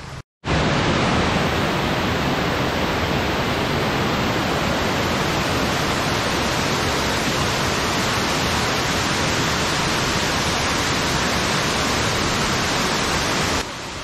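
Thudugala Ella waterfall: a steady, loud rush of water pouring down rock cascades. It starts after a split-second gap and cuts off abruptly near the end.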